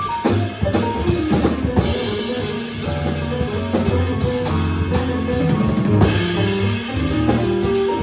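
Live small-group jazz from piano, upright double bass and drum kit playing together: walking bass notes under piano chords and lines, with busy drumming, and no saxophone.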